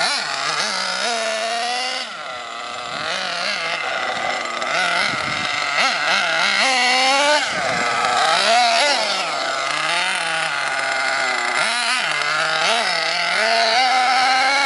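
Redcat Earthquake 3.5 RC truck's .21 two-stroke nitro engine revving up and easing off over and over as the truck is driven, its high-pitched buzz rising and falling every second or so.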